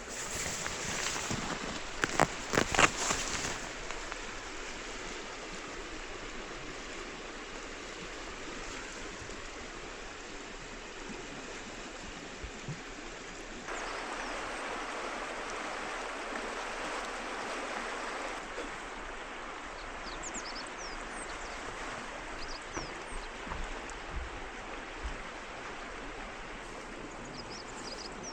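River water flowing steadily, a little louder from about halfway through. A few sharp clicks come in the first few seconds, and faint short high chirps come near the end.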